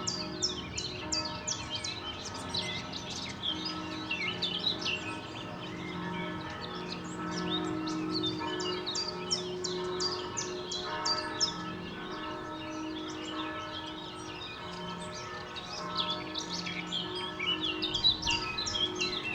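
Several distant church bells pealing, their tones overlapping and ringing on, while small birds chirp over them in quick runs of short high notes. A faint low hum of city noise lies underneath.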